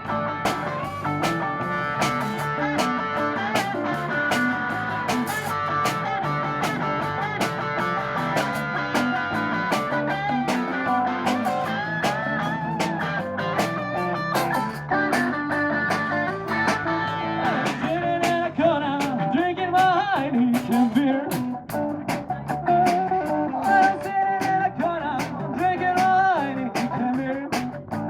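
Blues music led by guitar over a steady beat, with a wavering lead line coming in past the middle.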